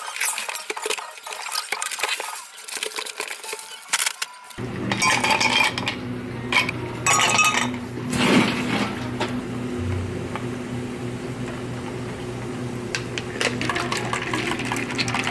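Parcel packing for the first few seconds: cardboard, plastic and tape being handled, with crackles and clicks. Then ice cubes clinking in glass mugs and a bar spoon stirring and clinking against the glass, over a steady low hum of cafe equipment.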